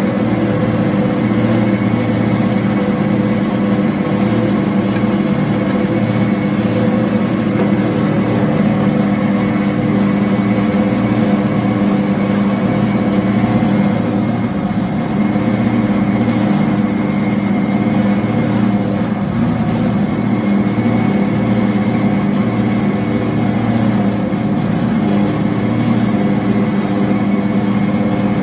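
Raisin grinder machine running steadily: an even, loud motor hum with a constant high whine and no change in speed.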